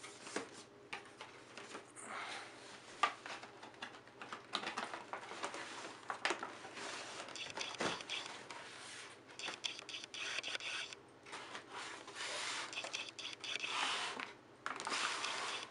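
Clear plastic blister packaging being slid and pulled out of a cardboard box: plastic and cardboard rubbing and scraping, with small clicks and knocks. It gets louder in stretches in the second half.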